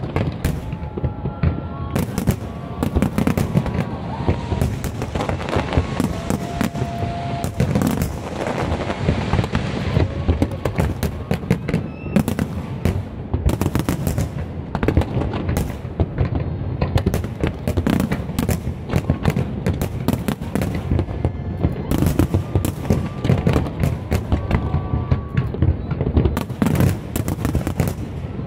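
Large fireworks display: a dense, continuous barrage of bangs and cracks, thickening into heavy crackling between about five and ten seconds in.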